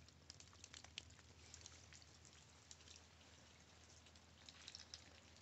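Near silence, with faint scattered ticks of light raindrops.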